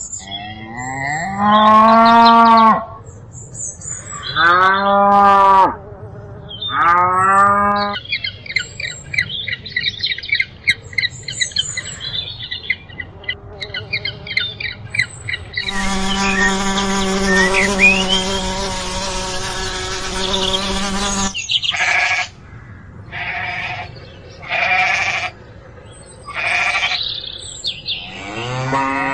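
A run of animal calls. First come three drawn-out calls in the first eight seconds, then a stretch of high, rapid chatter. After that comes one long call lasting about five seconds, and then several short high calls.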